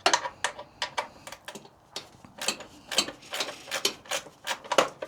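Socket ratchet wrench clicking in short irregular runs as a bolt is loosened.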